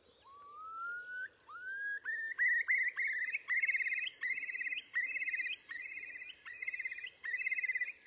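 Recorded bird call: a rising whistle, then a quickening series of upswept notes that turn into rapid, buzzy trills.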